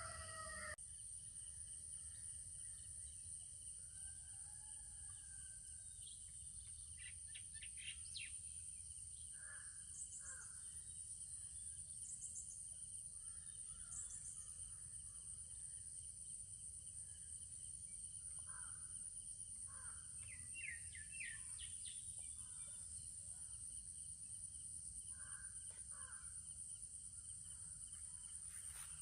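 Quiet rural morning ambience: scattered bird calls and chirps, with short trills and a thin high note repeated three times about two seconds apart near the middle, over a steady high-pitched hiss and a low rumble.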